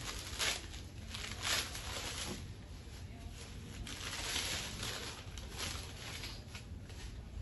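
Cotton saree fabric rustling as it is lifted, unfolded and shaken out, in several soft swishes.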